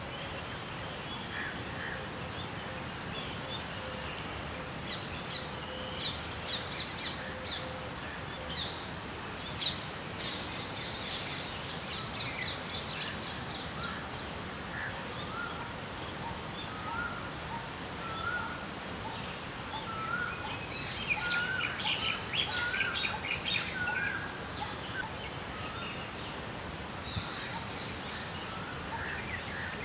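Small birds chirping and calling over steady outdoor background noise. Clusters of quick high chirps come and go, busiest a little past the middle, and a short note repeats about once a second for several seconds.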